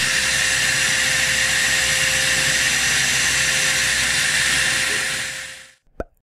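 Vacuum cleaner motor running steadily with a faint steady hum under its rush of air, drawing dust and debris out of tile grout joints. It fades out about five and a half seconds in, followed by a single short knock.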